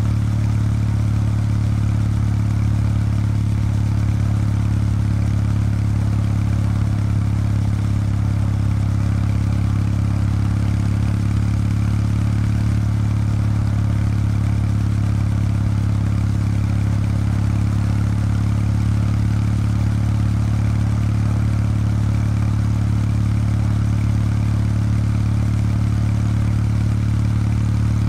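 Kawasaki W800 Street's air-cooled parallel-twin engine through its stock exhaust, running at a steady, unchanging engine speed while the motorcycle rides along.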